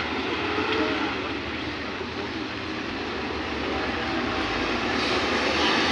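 Steady noise of a moving vehicle, growing a little louder near the end.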